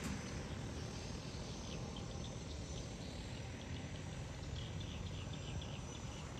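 Steady rotor hum of a DJI Agras T40 agricultural spray drone flying low over a field while spraying, with faint, short high insect chirps over it.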